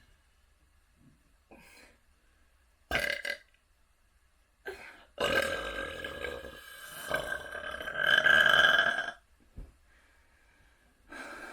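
A person burping: one short burp about three seconds in, then a long burp of about four seconds, loudest near its end.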